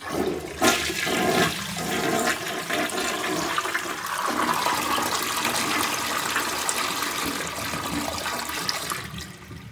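Gerber Avalanche toilet flushing at full power: water rushes through a 3-inch flush valve, fitted in place of the stock valve, into the bowl and down the drain. The tank is filled to its maximum level. The flush starts suddenly, runs strongly for about nine seconds, and tails off near the end.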